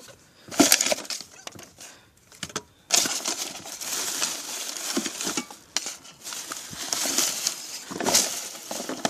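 Handling noise: a few sharp knocks and clicks in the first second, then a continuous, fluctuating rustling and scraping from about three seconds in.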